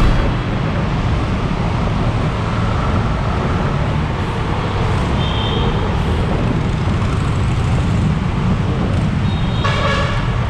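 Traffic noise heard from a motorcycle riding in city traffic among buses and cars: a steady low engine rumble. A brief high beep comes about five seconds in, and a louder pitched tone sounds near the end.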